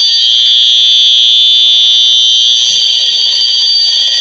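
Several smoke alarms sounding together: piezo horns giving a loud, steady, shrill high-pitched tone without breaks.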